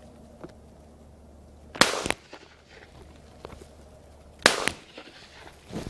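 Two shotgun shots about two and a half seconds apart, each a sharp bang with a short tail.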